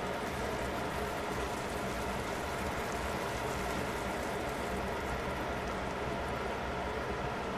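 Pot of vegetable broth simmering on the hob: a steady bubbling and fizzing with a low hum underneath.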